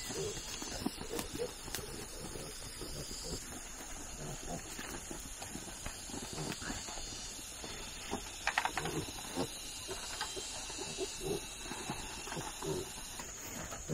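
Piglets grunting in short, soft sounds scattered throughout, with a brief louder cluster of sounds about eight and a half seconds in.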